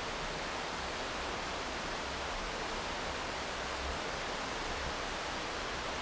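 Falls of Orchy river cascades rushing over rocks: a steady, even rush of white water.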